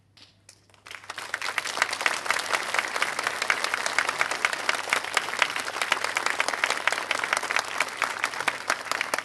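Audience applauding, starting about a second in after a brief hush and keeping up as a dense, steady clatter of many hands.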